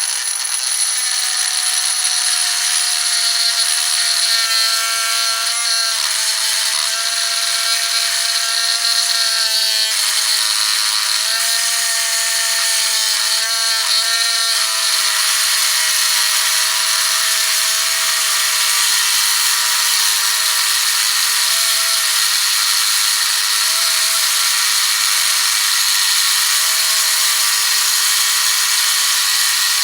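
Cutting wheel on a drill grinding into a Master Lock padlock: a steady high motor whine under a hiss of abrasive wheel on metal, the whine wavering a little as the wheel bites.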